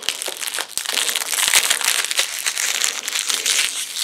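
Packaging crinkling and rustling, with small clicks, as hands struggle to open the package holding an airsoft gun's front iron sight.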